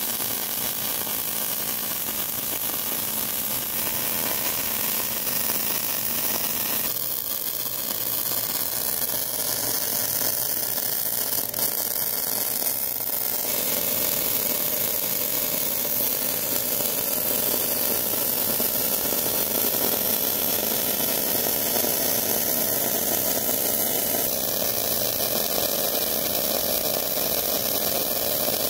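MIG welding arc running on steel with ER70S-6 mild steel wire, a steady hiss that shifts slightly in tone a few times, as weld is built up on a damaged auger drive shaft.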